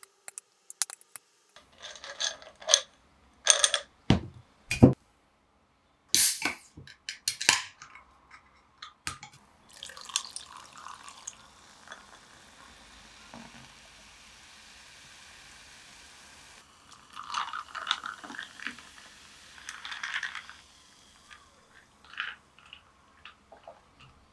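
Clinks and knocks of glass and ice, then a can of Coca-Cola popped open and the cola poured over ice into a tall glass, with a long steady fizzing hiss as it foams.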